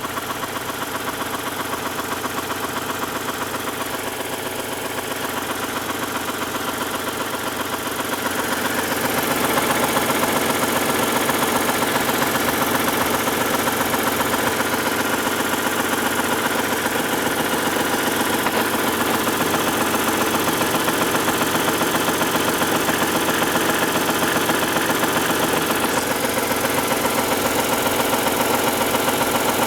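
Engine running with a rapid, repetitive knocking noise; it gets louder about eight seconds in and then holds steady.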